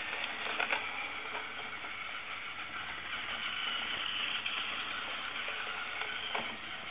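Battery-powered toy train running along plastic track: the steady whir of its small electric motor, with a couple of light clicks about half a second in.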